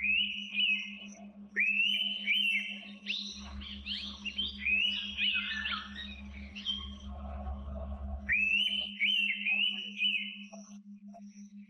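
Indian pitta giving loud whistled calls: phrases of a sharply rising note followed by falling notes, heard four times and overlapping in the middle. Short high chirps and a steady low pulsing hum run underneath.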